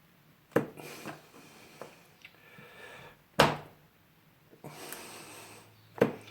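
Small hand tools and parts knocking on a workbench during close bench work: three sharp knocks about three seconds apart, with softer handling noise between them.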